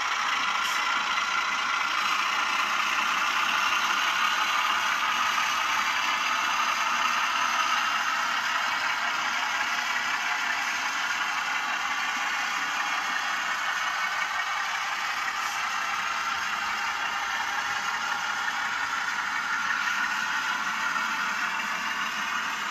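Bowser Alco RS-3 model diesel locomotive's LokSound 5 sound decoder playing a diesel engine running steadily through the model's small speaker, thin and without deep bass, mixed with the whir and rattle of the model running along its track.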